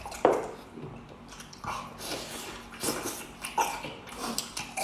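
Close-up eating sounds: a person chewing and smacking on stewed beef knuckle bone, with wet mouth clicks and sucking, the loudest smack just after the start.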